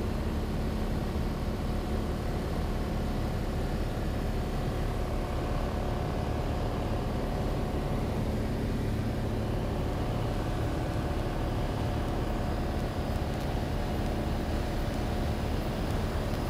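A Cessna 182's piston engine and propeller droning steadily in flight, heard from inside the cabin.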